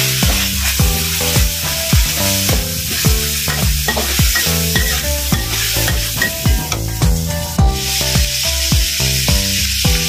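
Minced pork and chillies sizzling in oil in a steel wok, stirred and scraped with a metal spatula. Background music with a steady beat plays over it.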